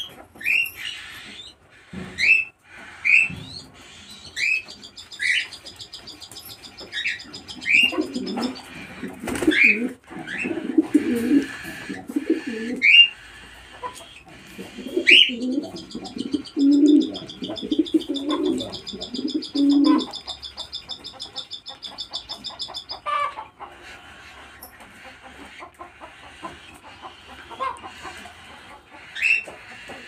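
Aviary birds calling: cockatiels giving short rising chirps about once a second, with pigeons cooing low through the middle stretch and a long, rapid buzzing trill high above it.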